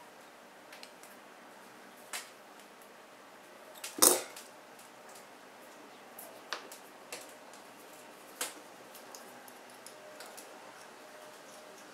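Scattered sharp metallic clicks and taps of jewelry pliers and copper wire as the wire is bent and shaped, the loudest single click about four seconds in.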